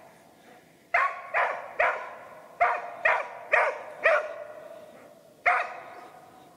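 Hunting laika barking at a small furbearer treed in a spruce, baying to hold it in place for the hunter. Eight sharp barks: a run of three, a run of four, then one more about a second and a half later.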